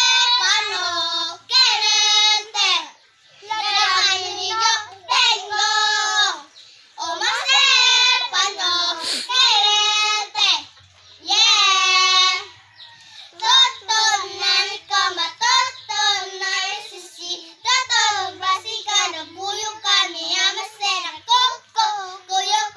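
Several young children singing a song together without accompaniment, in phrases separated by short pauses.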